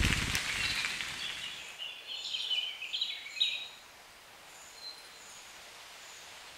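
Forest birds calling: a short run of chirping notes in the first few seconds, then fainter, sparser calls over a low steady background. A light hiss fades out in the first second.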